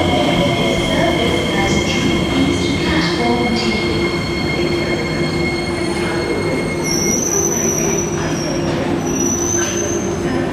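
Singapore MRT electric train braking to a stop at the platform, with rumble and steady high-pitched squealing from its brakes and wheels. About seven seconds in the squeal jumps to a higher pitch as the train comes to rest.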